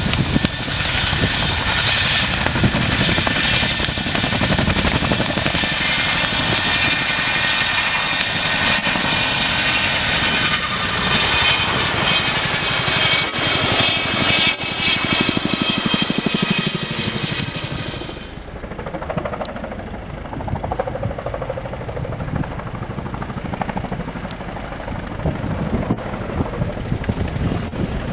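RAF Chinook tandem-rotor helicopter running close by: twin turboshaft engines whining high and steady, rising a little in pitch about two seconds in, over the rotor noise. About two-thirds of the way through, the whine cuts off suddenly, leaving quieter, lower rotor noise from Chinooks approaching at a distance.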